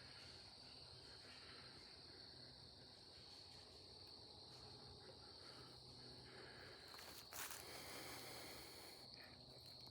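Near silence with a faint, steady, high-pitched insect drone.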